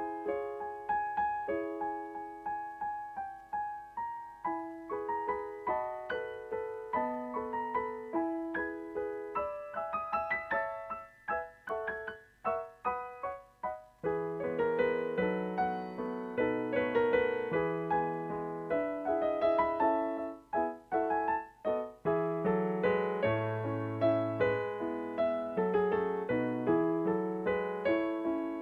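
Solo piano music accompanying a silent film, a steady run of chords and melody; it thins to sparse, broken notes about eleven seconds in, then returns fuller with deeper bass notes about three seconds later.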